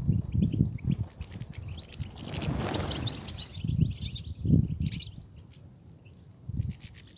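European goldfinches twittering in quick high chirps, busiest a few seconds in, over irregular low thuds.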